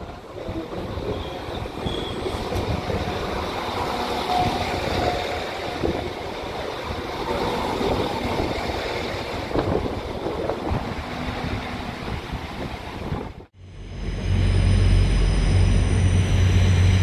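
Northern passenger multiple unit running in alongside the platform, a rumbling rush of wheels and air with wind buffeting the microphone. About 13 seconds in it cuts abruptly to a louder steady low train hum with some steady high tones.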